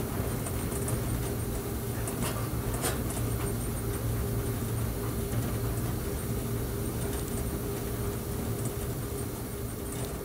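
Steady running noise of an electric train heard from inside the driver's cab: a low hum with a faint steady whine over wheel-on-rail rumble. A couple of short clicks come about two to three seconds in.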